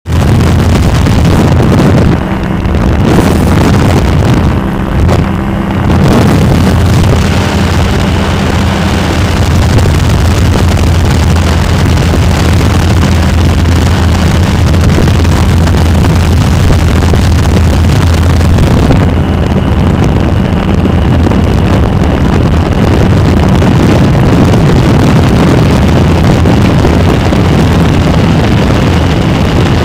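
Kolb Firefly ultralight aircraft's engine and propeller running steadily in flight, with wind rushing over the microphone. The level dips briefly twice in the first few seconds.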